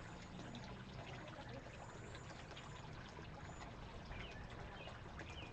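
Steady faint trickle of running water, with a few brief, high bird chirps on top.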